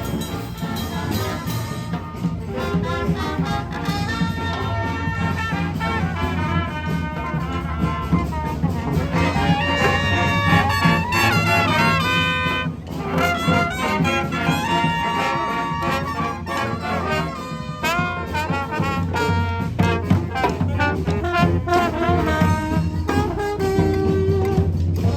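Street brass band playing, with trumpets and trombones carrying a busy melody over a continuous low bass.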